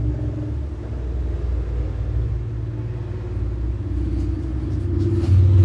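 A steady low rumble with a faint hum.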